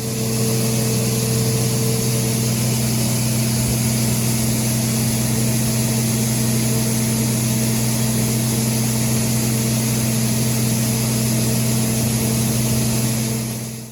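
A farm machine's engine running at a constant speed: a steady, unbroken drone over a hiss.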